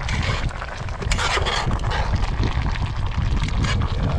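A metal spatula stirring and scraping through boiling venison stew in a cast-iron pan over a campfire, with many small clicks and scrapes, over a steady low rumble.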